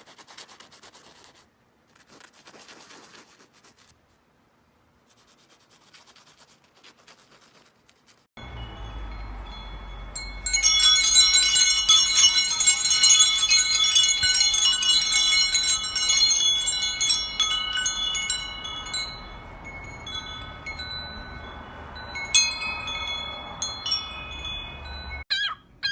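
Faint scratching and clicking, then a sudden change to metal chimes ringing: many overlapping high tones that sustain and slowly thin out, with a few lighter strikes near the end, over a low hum.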